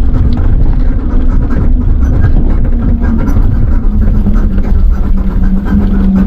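Electric tricycle riding along: a loud, steady rumble of road and wind noise with a steady hum underneath.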